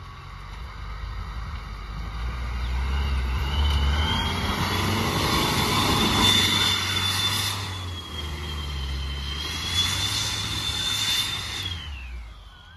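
Tata Safari Dicor's turbo-diesel engine revving hard under load, with a high whine that climbs about three seconds in, holds, and drops away near the end. The tyres spin in loose ploughed soil and throw dirt, which hisses in two louder surges.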